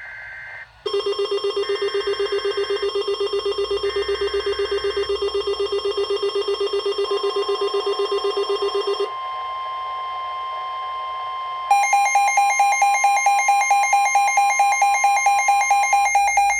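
NOAA Weather Radio Emergency Alert System tones for a severe thunderstorm warning. The SAME header's screeching digital data bursts come three times about a second apart, under a loud, rapidly pulsing buzz. About seven seconds in, the steady 1050 Hz warning alarm tone begins, and about twelve seconds in a loud, rapid beeping alarm starts over it.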